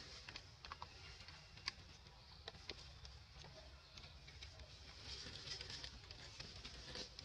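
Faint, scattered clicks and crackles of dry leaves and grass as a macaque forages through the leaf litter, over a low steady rumble.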